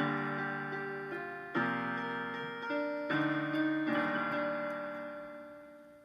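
Piano playing an instrumental passage of slow chords, a new chord struck every second or so and left to ring, fading away near the end.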